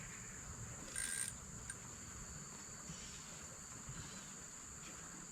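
Steady, high-pitched trilling of insects, with a brief louder hiss about a second in.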